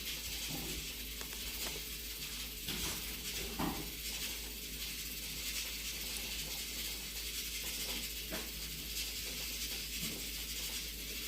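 Braised pig's trotters sizzling on a hot griddle as they are grilled, a steady hiss with a few soft knocks, the clearest about a third of the way in.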